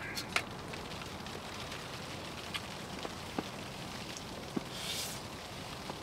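A few light clicks of chopsticks and a spoon against a metal cooking pot and bowl as food is dished up and eaten, spaced unevenly, over a steady background hiss, with a brief hiss about five seconds in.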